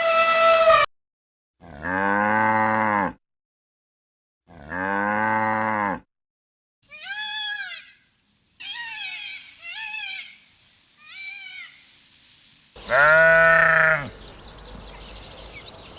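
Sheep bleating in a series of separate calls: two long, low bleats, then several short, high-pitched bleats, then one loud, long bleat about three-quarters of the way through.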